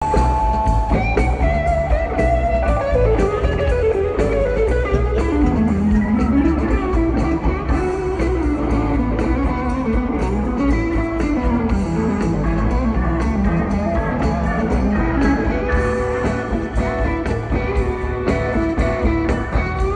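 Live rock band playing an instrumental passage: electric guitars over bass and a steady drum beat, with a melodic line that winds down and back up.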